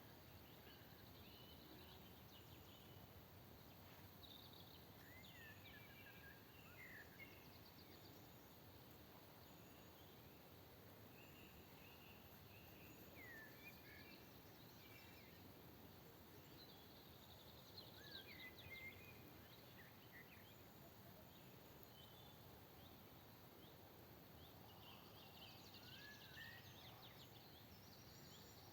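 Faint songbirds chirping and whistling over a steady background hiss, in short scattered phrases, busiest near the end.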